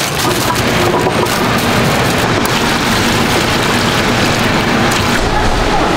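Water pouring and splashing from a plastic bowl onto tteokbokki rice cakes in a steel tray, a steady rain-like spatter.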